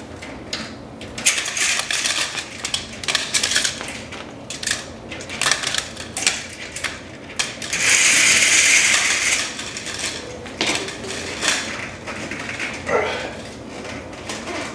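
Irregular clicking and clattering of a vertical blind's metal headrail and hanging vanes as the headrail is pushed sideways in its mounting brackets. About eight seconds in there is a longer scrape lasting a second or so.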